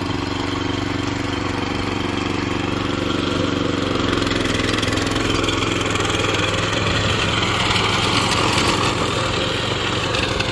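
Riding lawn mower's engine running at a steady pitch. About four seconds in, a louder, rougher whirring noise joins it and keeps going.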